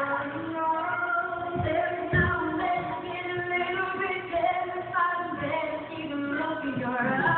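Voices singing a song over music, with a couple of low thumps about two seconds in.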